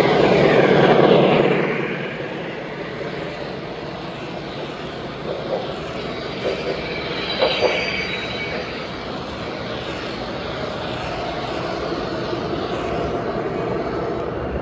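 Three-rail model train running past, its whine falling in pitch as it goes by in the first two seconds, then steady running with a few light clicks about five to eight seconds in.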